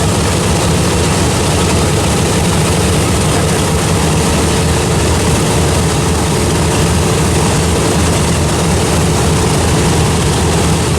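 Piston engines of World War II warbird bombers running steadily with a deep, even drone, as the planes prepare to take off.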